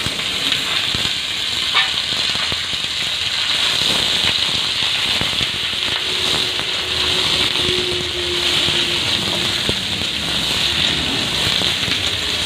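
Cut vegetables sizzling and crackling steadily in hot oil in an aluminium kadai as they are stirred with a spatula.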